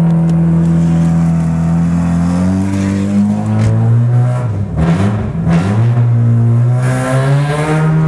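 Mazda Miata's four-cylinder engine revving hard under load as the plow-fitted car pushes into deep snow. The revs climb about three seconds in, drop sharply for a moment around the five-second mark, then rise again and hold.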